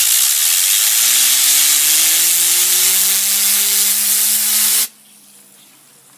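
A loud jet of compressed air hissing onto a fidget spinner for about five seconds, then cutting off suddenly. Under the hiss the spinner spins up with a whine that climbs steadily in pitch, and the whine fades out about a second after the air stops.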